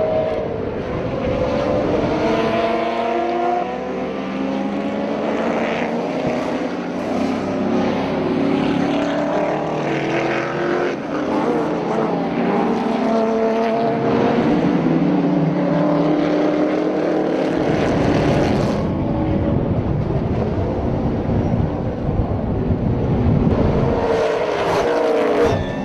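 Several race cars running at speed on a circuit, their engine notes overlapping and rising and falling in pitch as they rev and pass by.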